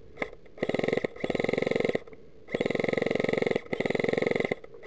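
Airsoft electric gun (AEG) firing full-auto: rapid strings of shots, about twenty a second, with the gearbox buzzing under them, in five short bursts of under a second each, the last running on past the end.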